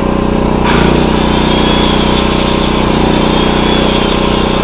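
Portable generator engine running steadily. About a second in, a corded circular saw plugged into it is switched on and keeps running, adding a high hiss over the engine and putting the generator under load.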